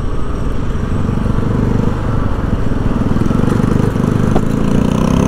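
Small motorcycle-type engine running close by with a fast, even putter.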